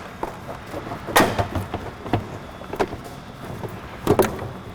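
Plastic stock airbox knocking and clacking against the engine bay as it is lifted out by hand, with a few separate knocks; the loudest come about a second in and near the end.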